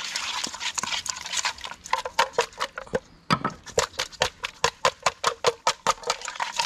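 Seasoned meat being mixed by hand in a metal bowl. A scraping rustle gives way about two seconds in to a fast run of sharp slaps and clicks, about five a second.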